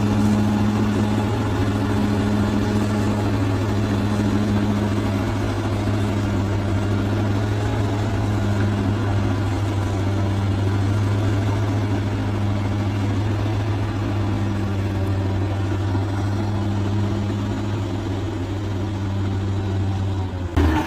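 Large bulldozer's diesel engine running at a steady, unchanging speed, a constant low hum. It breaks off abruptly just before the end.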